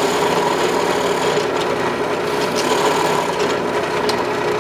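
Drill press running steadily, its bit boring a 7/8-inch hole through a pine pulley blank, a constant motor hum under the sound of the bit cutting wood.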